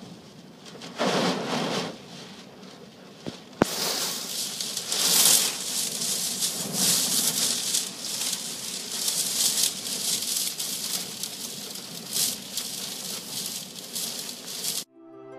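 Storm noise of strong wind and rough sea, rising and falling in gusts. A sharp click comes about three and a half seconds in, and the noise is louder after it. Soft music begins just before the end.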